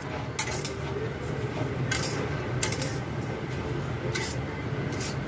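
Dry rice grains poured into an iron kadai, with a few sharp clinks of metal on the pan over a steady low hum.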